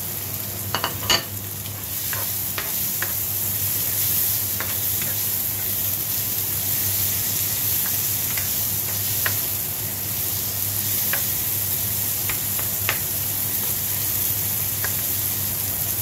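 Sliced red bell pepper, onion and garlic sizzling in hot oil in a frying pan, stirred with a plastic ladle, with a few sharp knocks about a second in and light scraping ticks after. A steady hum from the kitchen exhaust fan runs underneath.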